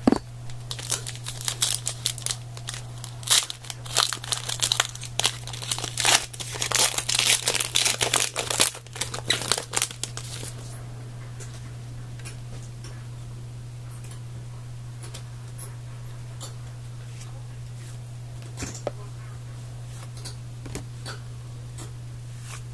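Foil wrapper of a trading card pack crinkling and tearing as it is opened, for about ten seconds, then only a few faint clicks.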